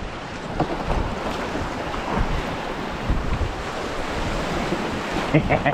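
Choppy ocean surf washing steadily, with strong wind buffeting the microphone.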